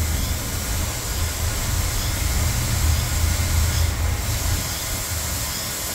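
632 cubic-inch big-block Chevrolet V8 running steadily on an engine dyno, dropping back from about 1,550 rpm to an idle near 1,000 rpm after a rev.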